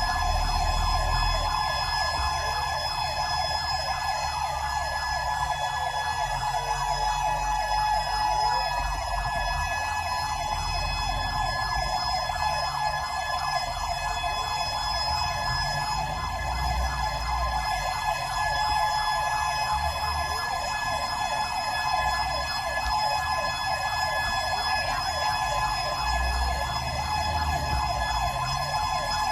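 Emergency vehicle siren sounding continuously with a rapid warble, over the low rumble of the vehicle's engine and road noise.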